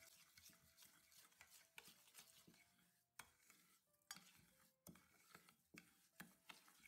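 Quiet stirring with a metal spoon: the spoon scrapes through granulated sugar and oil in a stainless steel bowl, with repeated clinks against the metal sides and a few louder knocks.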